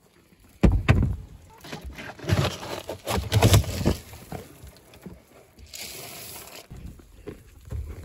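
Handling noise while sheep are fed grain: irregular knocks, bumps and rustling, with a short hissing rush about six seconds in.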